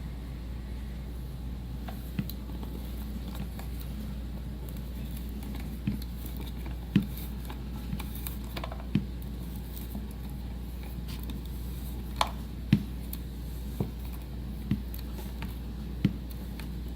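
Self-cutting T-nut being wound into a T-TRAK module with a T-handle Allen key: sparse, irregular clicks as it turns and cuts its way in, over a steady low hum.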